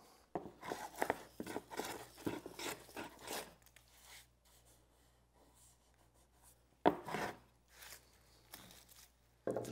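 Hand plane shaving down a glued-in patch of soft white fir, a quick run of rasping strokes for about three seconds. After a pause come a sharper stroke near seven seconds and a few lighter ones near the end.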